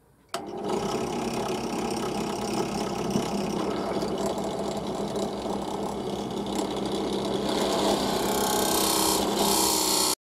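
Bench drill press running, its Forstner bit boring the centre hole in a wooden disc for the post, a steady motor hum with the bit cutting. The cutting grows louder and brighter near the end, then the sound cuts off suddenly.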